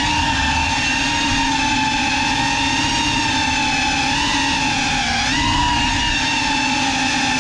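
GEPRC Cinelog 35 cinewhoop's brushless motors and ducted propellers on 6S whining steadily in flight. The pitch dips and swells with the throttle, rising briefly about four seconds in and again just past five seconds.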